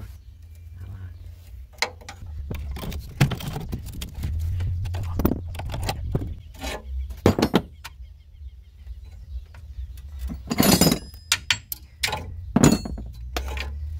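Irregular metallic clinks and knocks from hand tools and bolts as the rear transmission mount of a VW Kombi is unbolted by hand. A denser clatter comes near the end, over a steady low hum.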